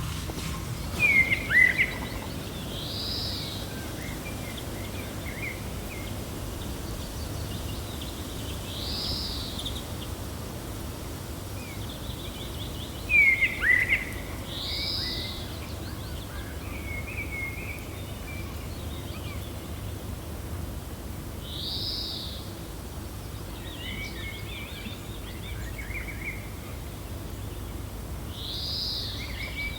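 Birds chirping over a steady low wind: an arched call repeats about every six or seven seconds, with two louder bursts of sharp, falling chirps about twelve seconds apart, and a few softer chirps in between.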